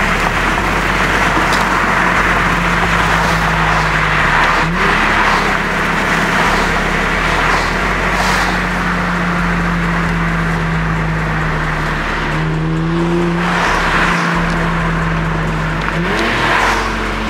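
Infiniti G37's 3.7-litre V6 running steadily under way over heavy road and tyre noise. The engine's pitch steps up sharply three times, about five, twelve and sixteen seconds in.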